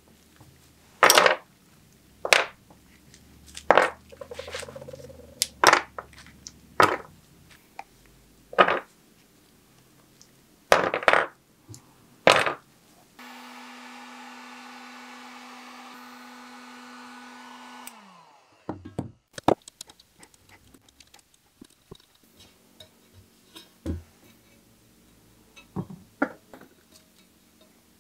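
Spring clamps snapping onto a leather saddle, about nine sharp clicks spread over twelve seconds. Then a Drill Master heat gun blows steadily for about five seconds, its hum falling in pitch as it is switched off. Faint ticks and scratches follow as the softened decal is picked off the bicycle frame.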